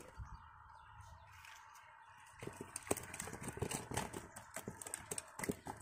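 Irregular close clicks and knocks of hands working fishing line and rod, starting about two seconds in and coming thick and fast, over a faint steady background.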